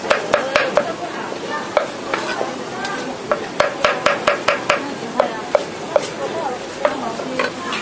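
Cleaver chopping green chillies directly in a steel wok, the blade striking the metal with a ringing clack in quick runs of about five a second, with pauses between runs. A steady sizzling hiss sits beneath the chopping.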